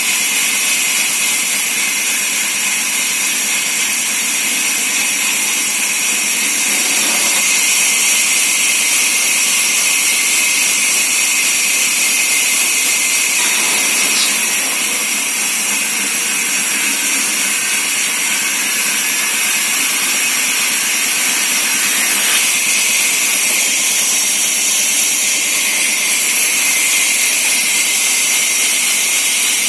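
Large 24-inch sawmill saw machine running steadily, a loud hiss with a high whine, getting somewhat louder and fuller from about seven to fourteen seconds in.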